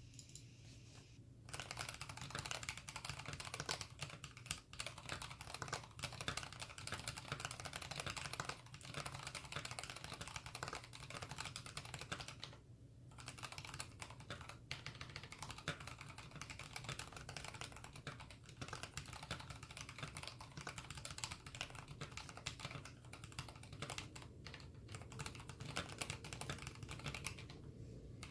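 Fast typing on a custom mechanical keyboard with Krytox-lubed Kailh BOX Red linear switches in an aluminium plate, under mStone keycaps: a dense, continuous run of keystroke clacks. It starts about a second and a half in, with short pauses about halfway and near the end.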